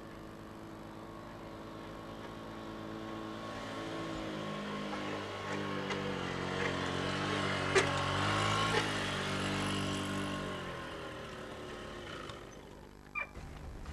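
A motor vehicle's engine approaching and passing by, growing louder to a peak about eight seconds in, then fading away.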